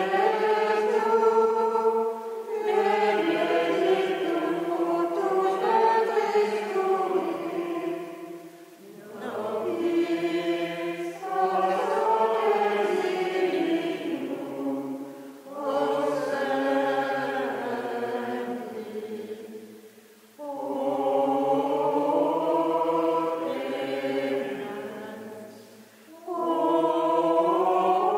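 Voices singing a slow chant together, in sustained phrases a few seconds long, each separated by a short pause for breath.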